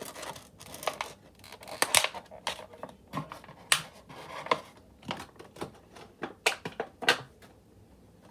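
Clear plastic packaging handled by hand: a stiff plastic tray and a bag crinkle and click irregularly as a small die-cast model airliner is taken out. The clicking stops about seven seconds in.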